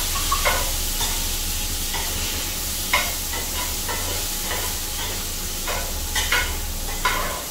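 Metal spatula scraping and tapping in a frying pan, stirring diced Spam, kidney beans and black olives as they sizzle. A low steady hum runs underneath.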